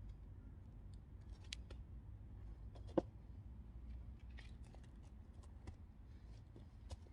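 Faint scattered clicks and taps of firewood being handled, with one sharper wooden knock about three seconds in, over a low rumble.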